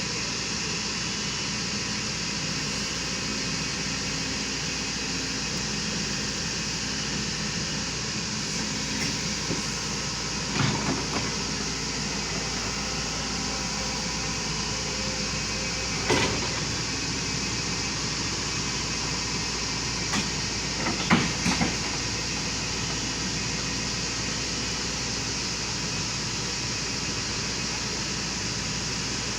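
Volvo excavator's diesel engine running steadily, with a few sharp metal clanks about 11, 16 and 21 seconds in as the machine is loaded onto a trailer.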